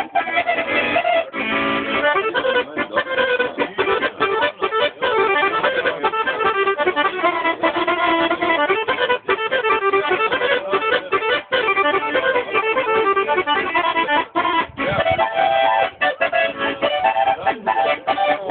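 Instrumental music with quick runs of notes, continuing without a break.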